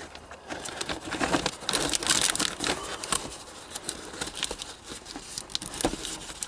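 Irregular rustling and crinkling with scattered small clicks and knocks, from someone crawling and handling tools and materials in a cramped attic.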